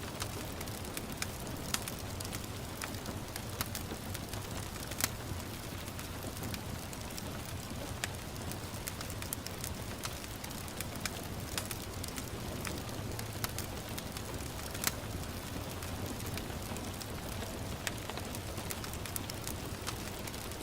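Wood fire crackling in a fireplace, irregular sharp pops and snaps over a steady hiss of gentle rain. The loudest pops come about five seconds in and again near fifteen seconds.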